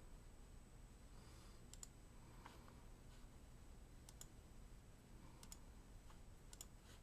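Near silence: quiet room tone with about half a dozen faint, sharp clicks spaced a second or so apart.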